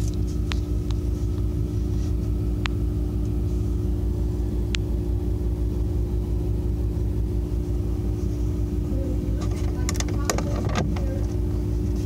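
Steady low hum and rumble, with a few light isolated clicks and, about ten seconds in, a short run of plastic clicks and taps as fingers touch the refrigerator's plastic air filter housing.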